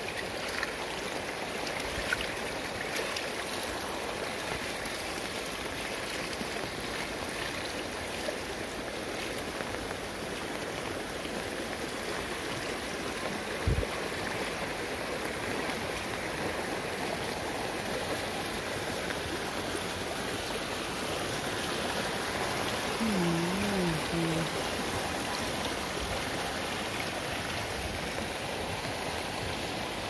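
Muddy, rain-swollen runoff rushing along a shallow field channel: a steady hiss and gurgle of flowing water. There is a single low knock about halfway through, and a short, low, wavering call about three-quarters of the way in.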